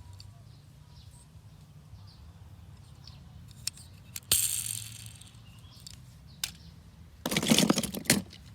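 Small hard objects clicking and clattering over a low hum: a few light clicks, a sharp clack about four seconds in, and a louder rattling clatter near the end.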